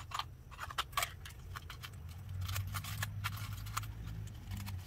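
Small metal screws clicking and clinking as they are picked through by hand in a small plastic container: an irregular run of light ticks.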